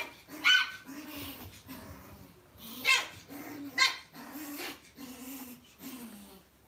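Lhasa Apso puppies play-fighting: low, repeated growls broken by a few sharp, high-pitched yips.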